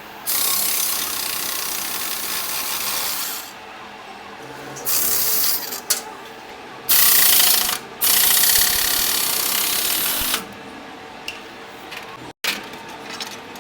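A compressed-air tool hissing in four bursts, the first about three seconds long and the others shorter, while the clutch side cover of a 70 cc motorcycle engine is being taken off.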